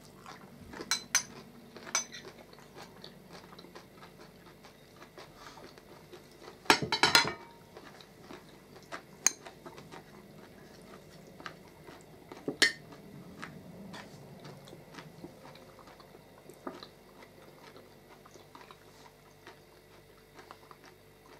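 Metal forks and a spoon clinking and scraping against plates and a bowl during a meal, with quiet chewing. The clinks are scattered, with a louder quick run of them about seven seconds in.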